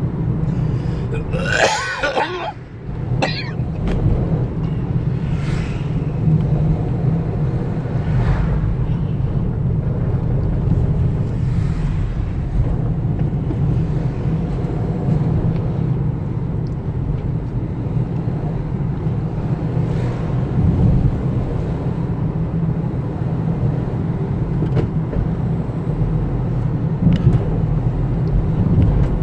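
Steady low rumble of a road vehicle on the move. About two seconds in there is a brief burst of a person's voice.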